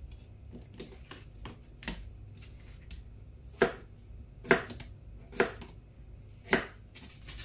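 Kitchen knife chopping raw potato into wedges, its blade knocking on a plastic chopping board: light, irregular cuts at first, then four louder chops about a second apart from about three and a half seconds in.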